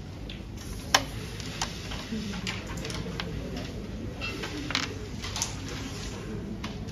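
Wooden carrom striker clicking on the board: one sharp loud crack about a second in as a shot is played, followed by several lighter taps as the striker is set down and lined up on the baseline.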